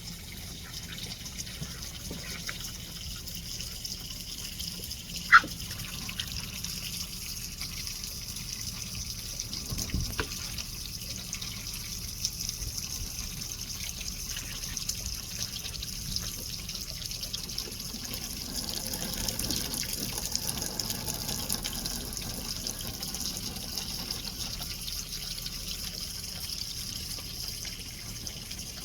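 Ducks splashing and dabbling in water, over a steady trickle and run of water. A sharp click sounds about five seconds in.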